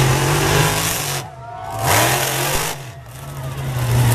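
Monster truck engines running hard under acceleration across a dirt track. The engine note dips sharply twice, about a second in and again around three seconds, and builds back up each time.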